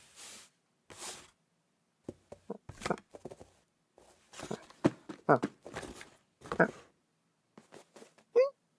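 Scattered short knocks and rustling scuffs in a small room, irregular and in clusters, with a brief pitched squeak near the end.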